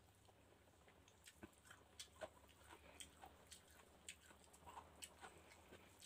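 Faint eating sounds: small irregular clicks and smacks of chewing, with fingers gathering pancit noodles by hand in a glass dish.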